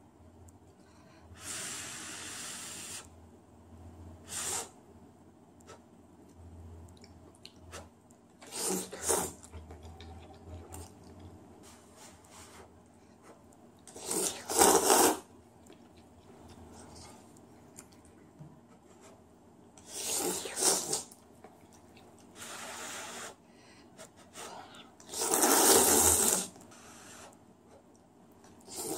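A person slurping instant ramyun noodles from chopsticks, in a series of about eight loud slurps with short pauses between them.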